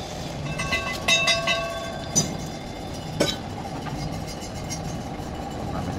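Metal pieces clinking against each other with short ringing tones during the first second and a half, then two sharp knocks about a second apart, over a steady background hum.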